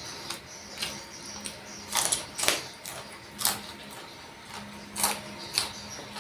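A person chewing food close to the microphone: irregular crunching and mouth smacks, with louder crunches about two to three and a half seconds in and again around five seconds in.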